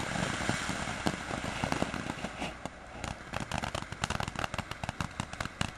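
Consumer ground-fountain fireworks spraying sparks: a steady hiss that turns into dense, rapid crackling from about halfway through.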